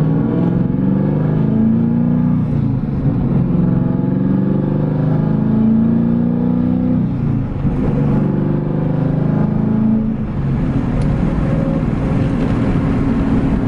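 The 5.7-litre LS1 V8 of a six-speed manual Pontiac Trans Am WS6, fitted with a Stage 4 cam, long-tube headers and a Borla cat-back exhaust, accelerating through the gears. The engine pitch climbs, drops back at each of two gear changes and climbs again, then settles into a steady drone for the last few seconds.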